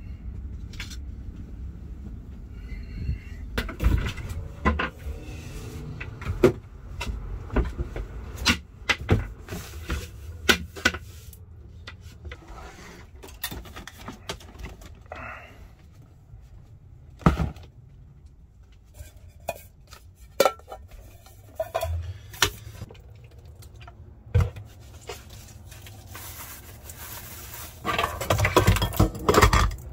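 Dishes, pots and utensils clattering and knocking as they are handled at a small sink and counter, in many separate sharp strikes. Near the end comes a denser stretch of running water and scrubbing as a pot is washed by hand.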